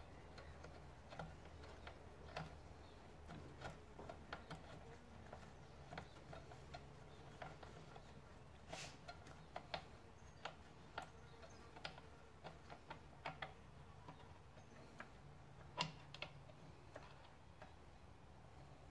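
Faint, irregular light clicks and taps of small carburettor parts being handled during disassembly, with two sharper clicks about halfway through and near the end, over a low steady hum.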